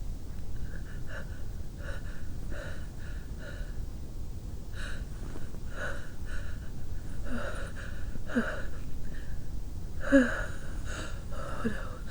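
A person's breath catching in a series of short, sharp gasps as a sneeze builds and is held back, with a few brief voiced catches in the throat from about eight seconds in, the loudest about ten seconds in.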